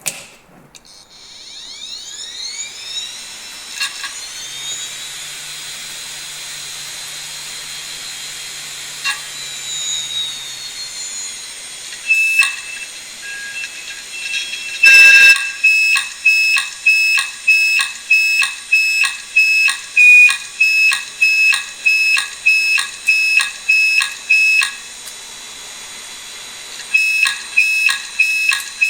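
Old Maxtor (HP-branded) hard disk drive, opened, spinning up with a rising whine that settles into a steady high whine, with a few sharp clicks. From about twelve seconds in it gives loud, regular siren-like beeping pulses, roughly one and a half a second, which pause briefly near the end and then resume. These are not happy sounds: they are the sign of a drive in trouble.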